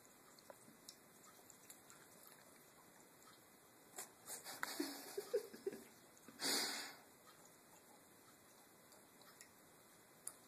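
Faint, irregular drips from a bathtub faucet. About four seconds in comes a short run of soft, uneven sounds, ending in a half-second rush of noise, the loudest thing heard.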